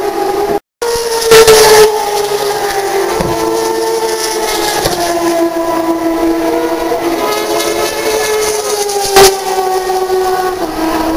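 Turismo Carretera race car engines running at high revs around the circuit, a continuous drone whose pitch drifts slowly as the cars move. There is a louder burst about a second in and again near the end, when a car passes close.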